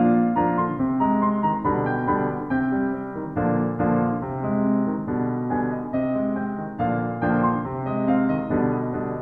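Background piano music: a steady stream of notes.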